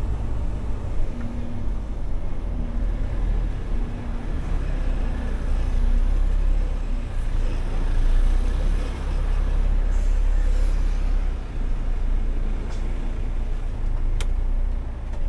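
Scania timber truck's diesel engine running with a deep, steady drone, heard from inside the cab while the truck is driven slowly. A couple of short clicks come near the end.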